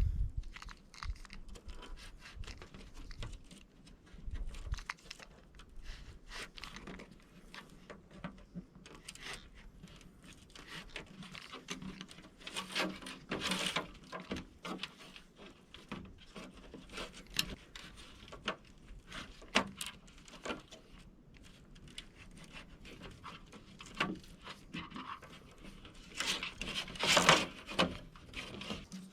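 Hand-work on a window screen: irregular clicks, light scraping and rustling as new screen mesh is stretched and pressed into the frame with a screen roller tool, with two longer scraping passes about 13 seconds in and near the end.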